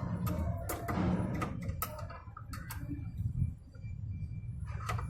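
Irregular metallic clicks and knocks of hand tools and parts being worked on a top-load washing machine's gearbox lever, over a low rumble.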